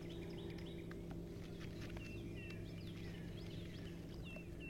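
Birds chirping: many short, quick falling calls repeated over and over, with a faint steady low hum underneath.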